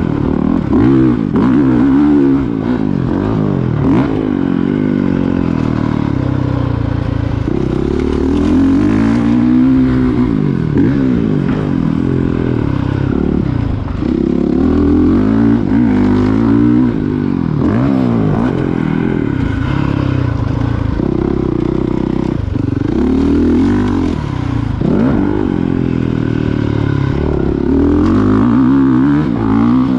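Honda CRF450R's single-cylinder four-stroke engine revving hard and backing off over and over as the dirt bike is ridden around a motocross track, its pitch climbing and dropping every couple of seconds with throttle and gear changes.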